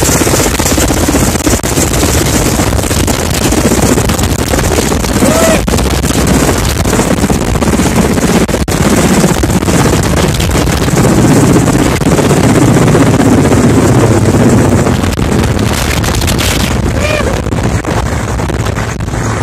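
Mi-8 helicopter's twin turboshaft engines and main rotor at take-off power close by, as it lifts off with an underslung fire bucket and climbs away, rotor wash buffeting the microphone. The loud, steady noise swells a little midway and eases slightly near the end as the helicopter gains height.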